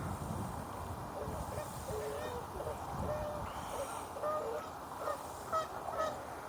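Geese honking, a run of short calls starting about a second in and growing busier toward the end, over a steady low wind rumble.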